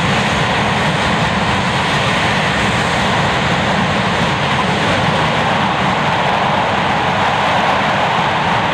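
English Electric Lightning F6's two Rolls-Royce Avon turbojets running loud and steady while the jet stands still on the runway: a constant jet roar.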